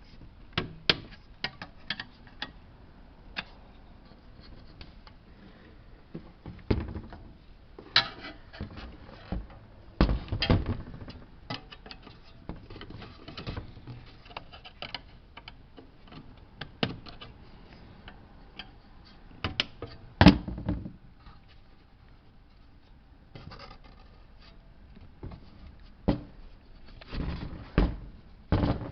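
Scattered clicks, knocks and scrapes of a screwdriver prying at the plastic tabs of a Ford Fusion / Mercury Milan car radio's faceplate and the unit being handled. The loudest knocks come about ten and twenty seconds in, with a run of them near the end.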